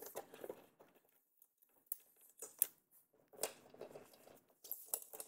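Faint, scattered small clicks and rustles of hands working at a motorcycle saddlebag's fittings and quarter-turn fasteners, a few taps spread irregularly with a quiet gap about a second in.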